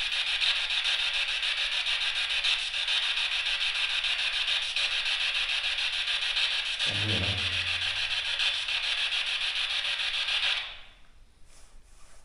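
A loud, steady hiss with a fine rapid flutter, cutting off abruptly about ten and a half seconds in. A brief low sound comes about seven seconds in.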